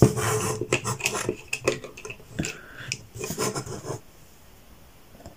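Plastic transforming toy truck and a wooden pencil handled against a tabletop: a string of clicks, knocks and scrapes, the loudest at the start, stopping about four seconds in.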